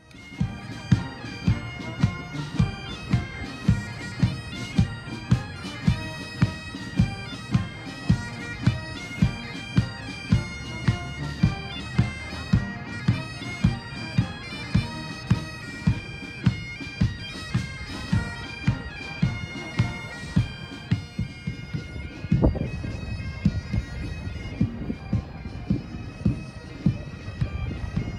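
Pipe band playing: bagpipes with their drones over a steady drum beat of about three strokes every two seconds. About three-quarters of the way through, a heavier drum stroke lands and the drumming becomes busier.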